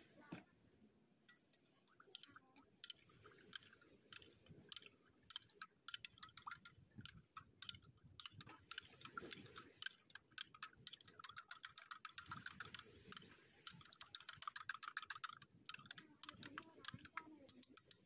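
Metal spoon stirring milk in a glass measuring jug, clinking against the glass in faint, quick, repeated light ticks that come thickest in the second half.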